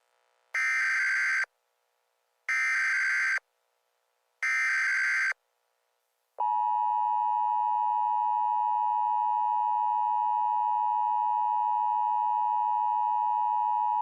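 Emergency Alert System tones: three one-second bursts of SAME digital header data, about a second apart. From about six seconds in comes the steady two-tone EAS attention signal (853 and 960 Hz). The header introduces an Emergency Action Termination message.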